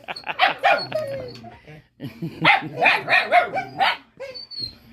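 Puppy barking and yipping in play: a quick run of short barks, a pause, then a second run starting about two and a half seconds in.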